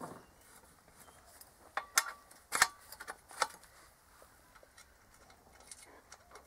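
A handful of sharp metal clicks and clanks in the first three and a half seconds, the loudest about two and a half seconds in, then only faint ticks: the steel-tube sawhorse's stabilizing foot being fitted and locked in place by hand.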